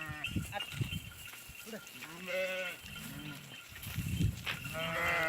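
Goats bleating: one wavering call about two seconds in and another near the end.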